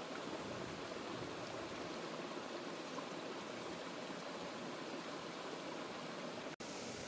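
Steady rushing water of a forest stream or waterfall, an even hiss with no break until it cuts out for an instant about six and a half seconds in.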